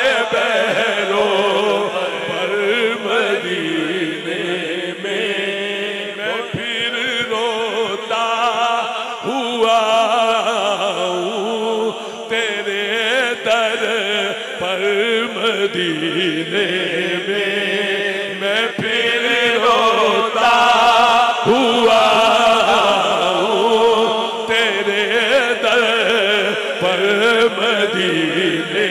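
A man's voice chanting a devotional Punjabi–Urdu kalam (naat) with no instruments, in long drawn-out notes that waver up and down in pitch.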